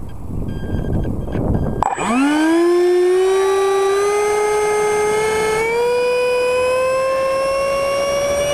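A ParkZone Habu's electric ducted fan starts about two seconds in. Its whine sweeps up quickly, then climbs slowly and steadily in pitch as the throttle is advanced. Before it starts there is a low rumbling noise.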